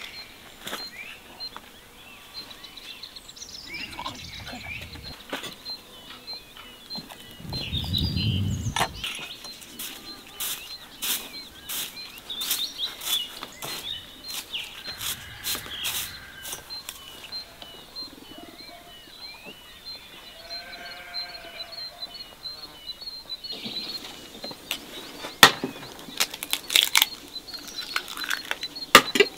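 Small birds chirping in a steady repeating pattern, with scattered sharp knocks and clicks in the middle and a few louder sharp clicks near the end, where eggshells knock against each other and against a bowl.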